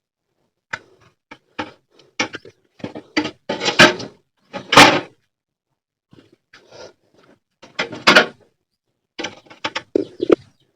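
Irregular knocks, clicks and scraping of plastic refrigerator parts being handled, with a few louder knocks spread through.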